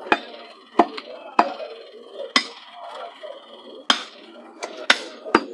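Meat cleavers chopping beef on wooden log chopping blocks: about eight sharp, uneven chops, coming one or two a second from more than one butcher.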